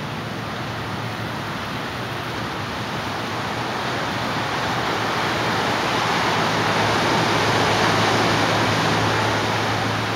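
Ocean surf breaking and washing up a sandy beach: a steady rush of noise that swells to its loudest about two-thirds of the way through.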